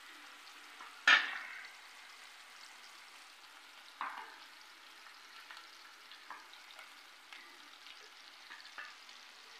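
Prawn vadas deep-frying in coconut oil: a faint steady sizzle with scattered small crackles. A sharp knock about a second in is the loudest sound, and a softer one comes about four seconds in while a steel ladle works in the pan.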